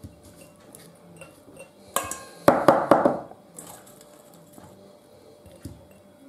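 Stainless steel bowl clattering as a hand digs cauliflower florets out of it: a quick run of knocks and clinks about two seconds in, lasting about a second, with a few faint light knocks before and after.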